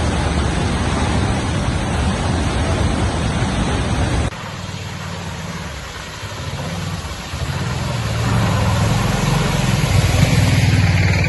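A torrent of floodwater rushes over the road as a loud, even rush. It cuts off suddenly about four seconds in. Then a small auto-rickshaw engine runs as the vehicle drives through shallow floodwater towards the listener, its tyres swishing through the water, and grows louder as it passes close near the end.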